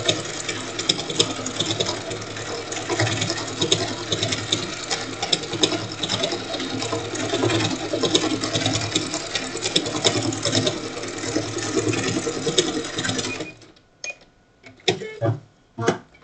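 Domestic sewing machine running steadily as it sews a decorative stitch through a quilt block, stopping suddenly about thirteen seconds in. A few short clicks and knocks follow.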